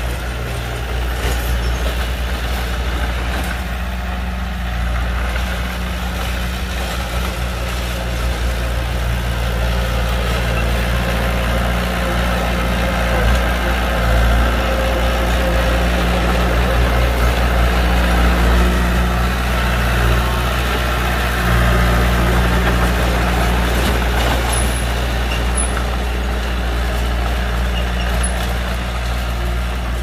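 Heavy diesel engine of earthmoving machinery running steadily, a loud, continuous low drone.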